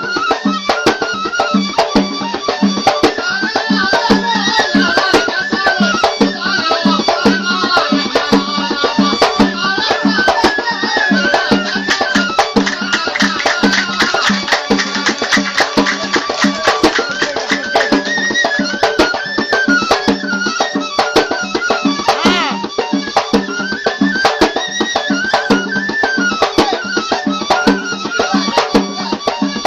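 Traditional Yafi'i folk music: a reed pipe (qasaba) plays repeating arching melodic phrases over a steady low drone, with a drum beating fast, dense strokes throughout.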